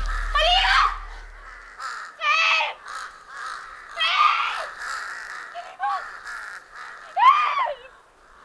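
Crows cawing several times, a few short harsh calls spread over several seconds. A deep rumble fades out in the first second or two.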